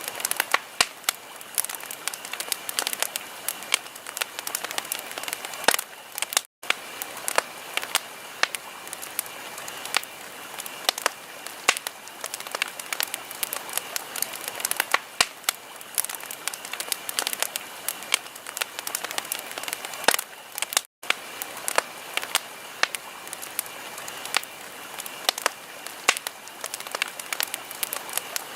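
Wood fire crackling in a fireplace: dense, irregular pops and snaps over a steady hiss. Twice the sound cuts out for an instant.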